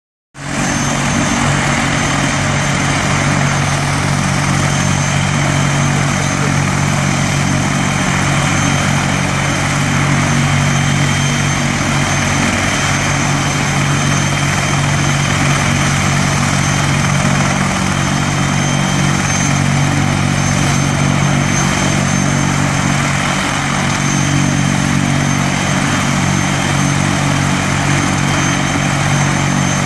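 Two Army Air Corps Apache attack helicopters running on the ground, their turboshaft engines and turning rotors giving a loud, steady thrum with a constant high-pitched turbine whine. The pitch and level do not change; the helicopters do not lift off.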